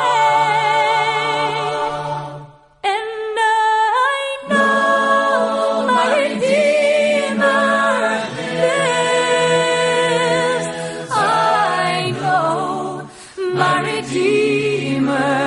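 Unaccompanied voices singing a song in harmony, with vibrato on the held notes over a sustained low note. The singing drops out briefly about two and a half seconds in and dips again near the end.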